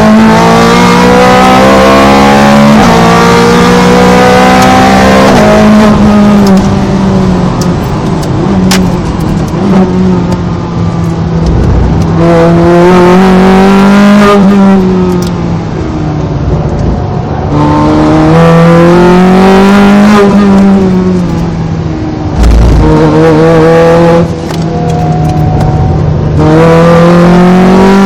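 Ferrari 430 Scuderia's V8 engine heard from on board, driven hard on track: it revs up steeply through the gears with quick upshifts, then drops back as the driver lifts and downshifts for corners. This rise and fall repeats several times, with a few sharp pops while off the throttle.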